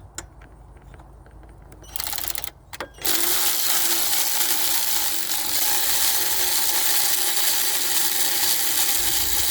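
Electric ratchet spinning out the belt tensioner's bolt: a short burst about two seconds in, then running steadily from about three seconds on.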